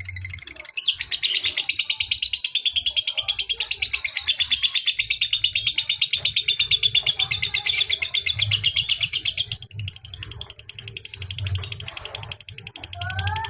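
Lovebird giving its 'kekek' call: a long, fast, rattling run of high notes repeated many times a second. It stops abruptly after about nine seconds, and a few softer chirps follow.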